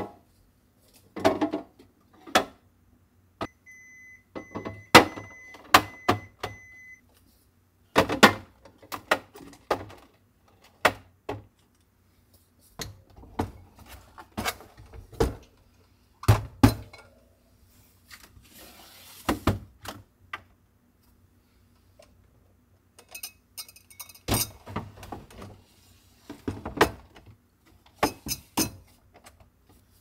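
Containers, bottles and storage cases being handled and set down on refrigerator shelves: a long series of separate thunks, knocks and clinks with short pauses between them. A steady high beep sounds for about three seconds near the start.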